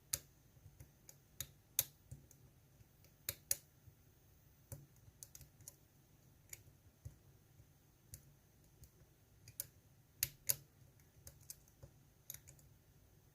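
Irregular small metallic clicks of a lock pick working the spring-loaded pin stacks of a GEGE euro cylinder held under tension, with a few sharper, louder clicks among the faint ones.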